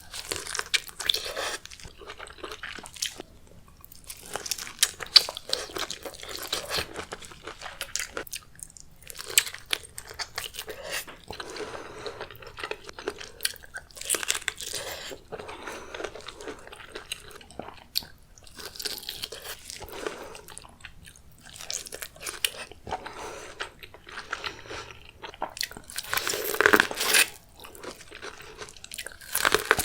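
Close-miked mukbang eating of seafood: irregular biting, crunching and chewing, a steady run of sharp crunches, with a louder cluster of crunches near the end.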